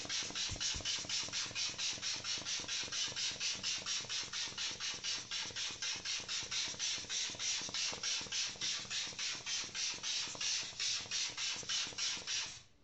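Aftershave sprayed onto the face from a pump-spray bottle, worked over and over: a fast run of hissing puffs, about four a second, that stops abruptly near the end.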